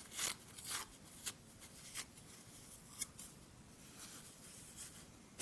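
Toilet paper being ripped up and rustled by hand: a run of short, soft tearing and crinkling sounds, busiest in the first two seconds, with a sharp click about three seconds in.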